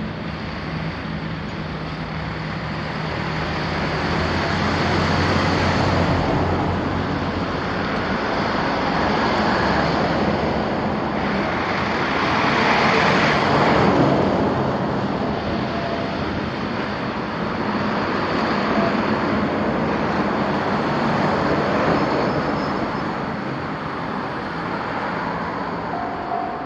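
Road vehicles driving over a railroad crossing one after another, each passing as a rush of tyre and engine noise that swells and fades, with a low engine hum in the first several seconds. Near the end a pulsing ringing tone starts, the crossing alarm beginning to sound.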